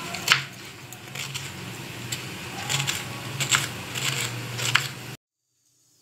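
Kitchen knife slicing ridge gourd on a cutting board: irregular sharp knocks of the blade meeting the board, over a low steady hum. The sound cuts off abruptly about five seconds in.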